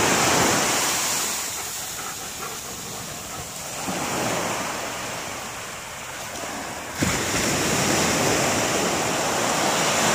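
Surf breaking and washing up the beach, with wind buffeting the microphone. A sudden thump about seven seconds in, after which the wash of the waves is louder.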